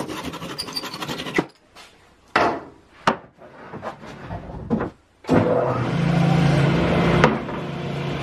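A handsaw cutting quickly through the protruding box-joint fingers of a pine frame for about the first second and a half, followed by a few knocks. About five seconds in, a machine starts running steadily, the table saw, dropping a little in level after a click near the end.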